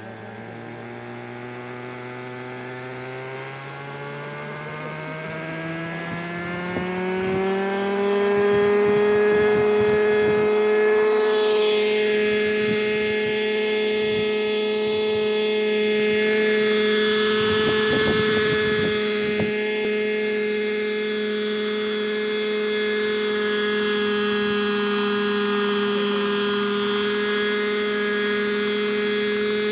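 Hirobo Shuttle radio-controlled helicopter's glow-fuel engine and rotor spooling up, the pitch rising steadily over the first eight seconds or so, then running at a steady high pitch as it lifts off and hovers. The tone sweeps and swishes as the helicopter moves about midway.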